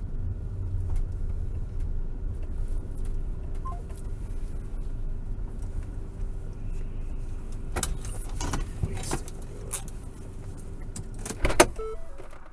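Low engine and road rumble inside a van's closed cabin as it pulls up. This is followed in the second half by a scatter of sharp clicks and knocks, the loudest shortly before the end.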